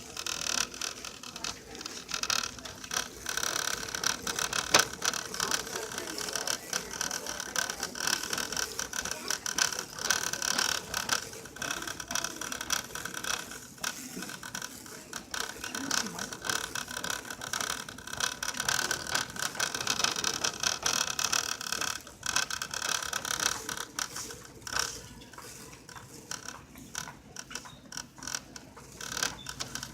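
Shopping cart rattling as it is pushed along, a continuous fast clatter of wheels and wire basket.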